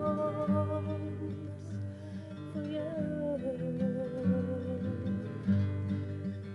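Acoustic guitar strummed in a steady rhythm, with one long held note with a slight vibrato above it that ends about five seconds in.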